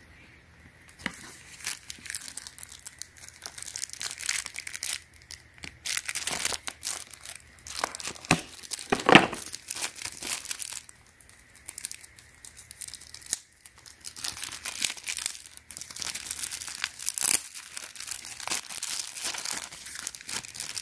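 Thin clear plastic packet being crinkled and torn open by hand, with irregular crackling throughout and one louder crackle partway through.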